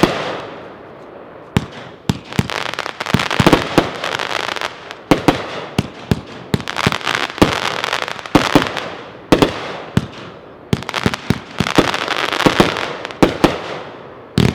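A 25-shot consumer fireworks cake (Class B Fireworks' Crackle Mine to New Color Dahlia with Crackle Willow) firing in a rapid series of sharp reports. Each report is followed by about a second of dense crackling from crackle stars.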